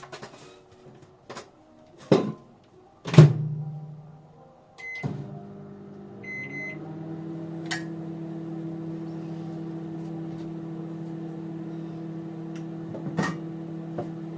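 Microwave oven being set going: a few knocks and the door shut with a bang about three seconds in, a beep and a short run of keypad beeps, then the oven's steady low hum as it runs, with an odd light knock.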